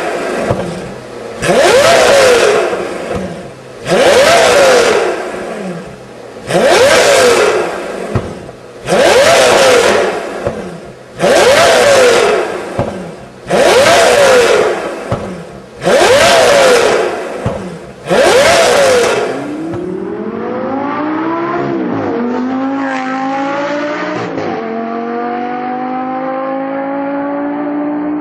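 Lamborghini engine through an aftermarket Kreissieg valve-controlled exhaust, blipped hard eight times about every two and a half seconds, each rev rising sharply and falling back. About twenty seconds in it changes to a longer, steady climb in pitch, dipping briefly twice.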